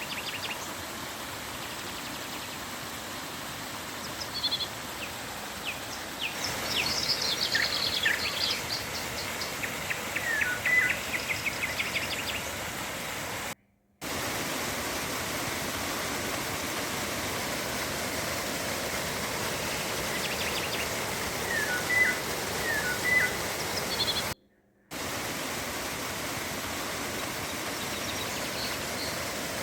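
River water flowing with a steady rush, with birds chirping and calling over it in quick short notes, busiest a few seconds in and again about two-thirds through. The sound cuts out completely for a moment twice.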